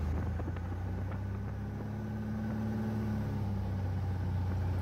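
Steady drone of a Cessna light aircraft's piston engine and propeller, heard from inside the cabin in cruise, a low even hum with no change in pitch.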